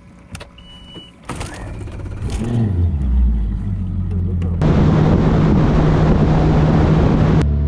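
A bass boat's outboard motor is throttled up from low speed, its pitch rising and growing louder, after a short beep and a few clicks. Then the boat runs at speed, with a loud, even rush of wind and water over the steady drone of the motor.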